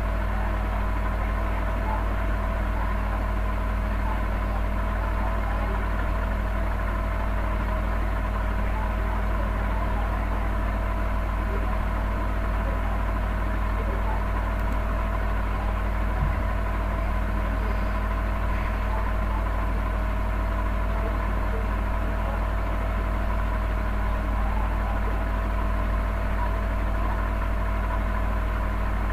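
A steady, unchanging low machine hum with a few faint steady tones above it.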